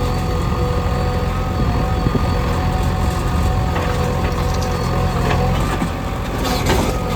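JCB 3DX backhoe loader's diesel engine running steadily with a whine, while soil and stones crunch and crackle in the bucket, loudest about six and a half seconds in.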